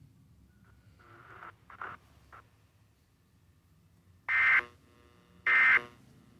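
Emergency Alert System digital data bursts (SAME code tones): two short bursts about a second apart, the first about four seconds in. Their shortness fits the end-of-message code that closes an EAS test.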